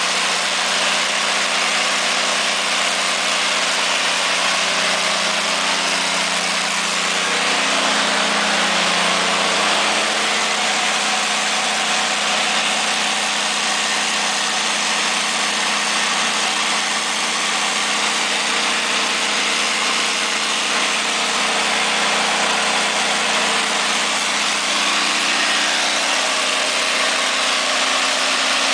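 Cummins QST30-G5 V12 diesel engine of a 750 kW generator set running steadily, a loud, even drone with no change in speed.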